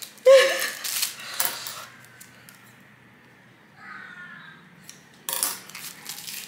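A person's short, loud wordless cry of frustration that bends in pitch, followed by quieter handling noises and a brief rustle near the end.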